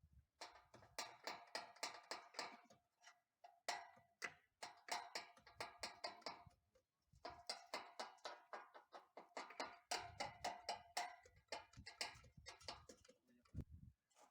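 Rapid, faint clicking, about ten clicks a second, in three runs separated by short pauses.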